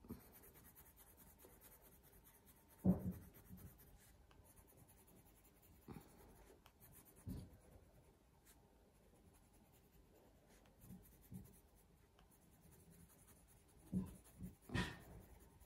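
Pencil shading on textured drawing paper: faint, steady scratching of the lead over the paper's tooth. A few soft knocks break in, the loudest about three seconds in and a small cluster near the end.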